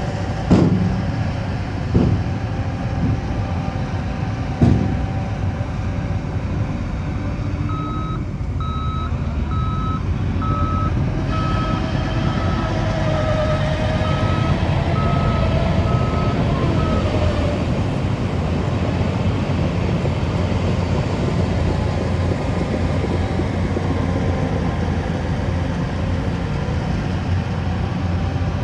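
Heavy construction vehicle's diesel engine running steadily, with its reversing alarm beeping in an even series from about eight seconds in until about seventeen seconds. Three sharp knocks come in the first five seconds.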